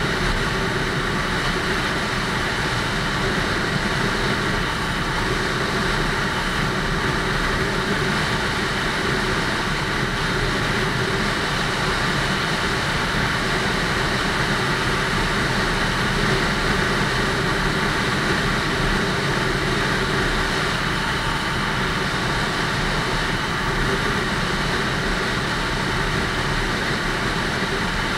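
Lexmoto ZSX-F 125 cc motorcycle being ridden at a steady speed, its engine running evenly with no change in revs.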